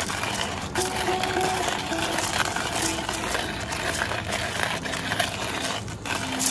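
Hand-cranked burr coffee grinder grinding whole coffee beans: a steady gritty crunching as the handle is turned.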